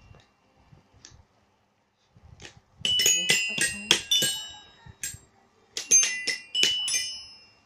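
Child's toy xylophone struck with a mallet: irregular clanking strikes with high ringing notes. They start about two seconds in, come in quick flurries and stop just before the end.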